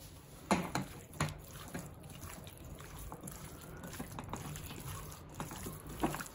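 Hands squeezing and turning raw chicken pieces in a spice and ginger-garlic paste marinade in a bowl: irregular wet squelches and slaps, the loudest about half a second and a second and a quarter in.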